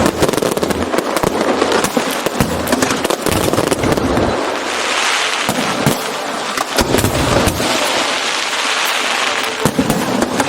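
Aerial fireworks going off: many sharp bangs in quick succession, with two spells of dense crackling, one around the middle and one toward the end.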